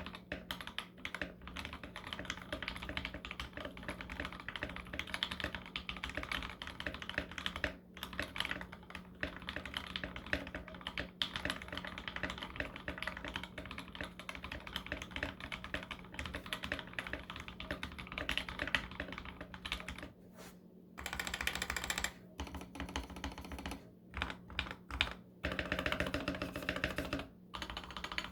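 Continuous fast typing on a custom 60% mechanical keyboard with lubed and filmed Mauve switches on a brass plate in an acrylic case, under MT3 keycaps: a dense run of keystroke clacks. The typing eases off briefly about twenty seconds in, then resumes.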